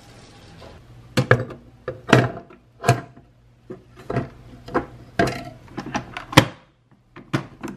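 A series of sharp knocks and clunks from a Panasonic SD-BMS105T bread machine as its bread pan is set into place and the lid is handled and shut. About a dozen irregular hits, the loudest a clunk near the end.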